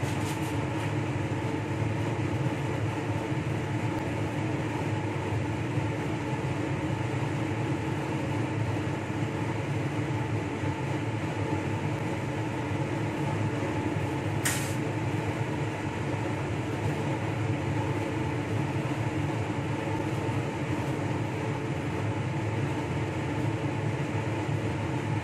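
Steady hum of a fan or air-handling blower running at an even pitch, with one sharp click about halfway through.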